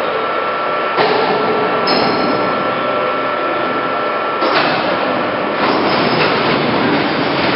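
POREBA TCG 125 heavy-duty lathe running, a dense mechanical rattle and hiss with a steady high whine. The noise rises suddenly about a second in and again around four and a half and five and a half seconds in.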